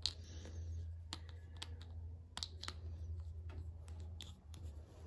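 Light, irregular plastic clicks and taps from handling a small plastic cosmetic bottle and screwing its cap back on, over a low steady hum.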